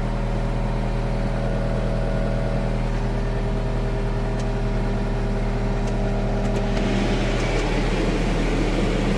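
John Deere 325G compact track loader's diesel engine idling steadily, heard from inside the cab. About seven seconds in, the cab's air-conditioning blower comes on with a rush of air over the engine hum.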